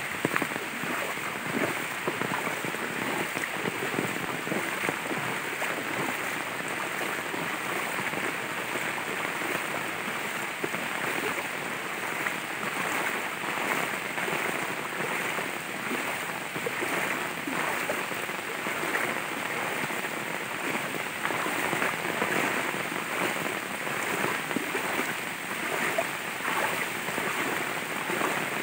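Heavy rain falling steadily onto flooded standing water, an even, unbroken hiss of drops hitting the water surface.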